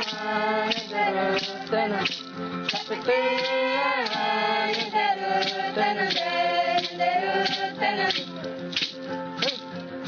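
Chanted singing with a shaken rattle keeping a steady beat of about two shakes a second; the voices hold long notes and slide between them.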